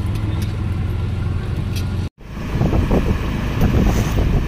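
Auto-rickshaw ride heard from inside the cab: a steady low engine hum. It breaks off suddenly about two seconds in, then comes back as a louder, rougher rumble of the moving vehicle.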